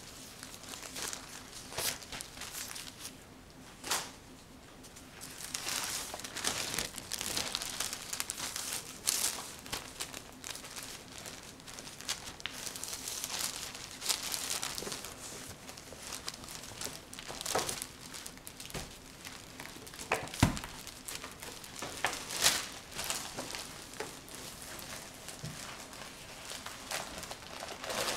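Crinkling and rustling from something being handled, with scattered clicks and one sharp low thump about twenty seconds in.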